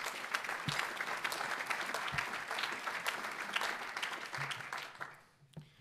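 Audience applauding, a dense clapping from many hands that fades out about five seconds in.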